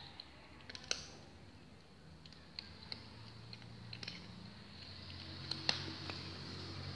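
A kitten crunching and gnawing on a small bone: irregular sharp crunching clicks, a second or so apart, the loudest about one second and five and a half seconds in.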